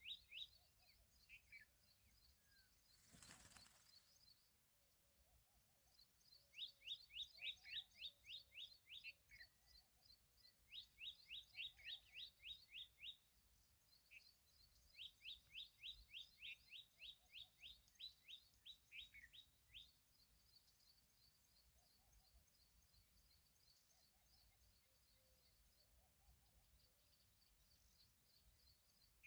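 Faint birdsong: a small bird repeating quick, high, falling chirps about four a second, in runs of a few seconds with pauses between, over a steady high hiss. A brief rush of noise comes about three seconds in.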